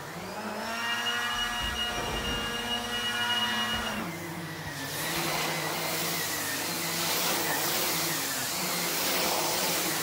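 Numatic Henry HVR200 cylinder vacuum with its 620 W single-speed motor running and an air-driven Airobrush turbo head. A whine rises about half a second in and holds steady. About four seconds in its pitch drops, and from about five seconds a louder rushing of air takes over as the brush head works the rug.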